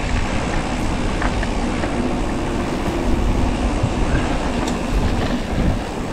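Steady wind rumble on the microphone mixed with tyre rolling noise from a gravel bike being ridden uphill, with a few faint ticks.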